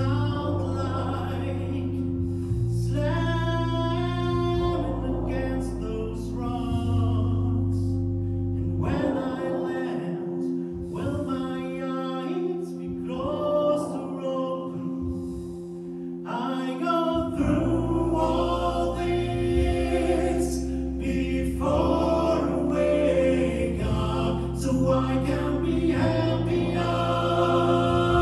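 Choral singing over sustained low electronic chords; the low chords drop out for several seconds in the middle and then return.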